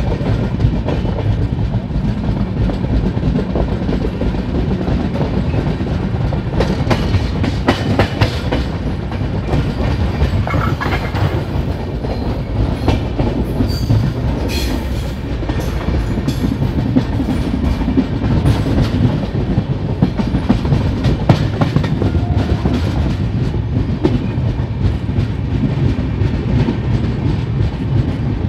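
Passenger train coaches running along the track, heard from an open coach door: a steady rumble of wheels on rail with clicks over rail joints, and a stretch of sharper clattering about seven seconds in.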